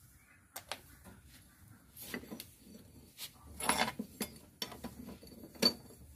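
Irregular metallic clinks and knocks of steel spanners and parts being handled against the steel rear hood and hinge bracket of a Shaktiman tractor rotavator. A cluster of clinks comes past the middle, and the sharpest knock comes near the end.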